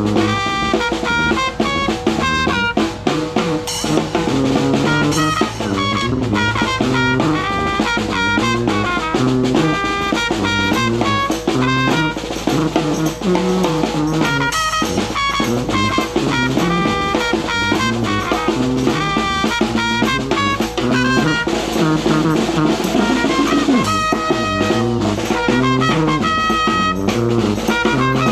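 A New Orleans-style brass trio playing: trumpet lead over a moving sousaphone bass line, with a snare drum keeping up a busy beat.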